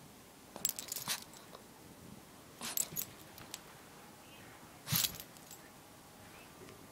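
Dog sneezing in short, sharp bursts: a quick cluster about a second in, another near three seconds, and a single louder sneeze about five seconds in.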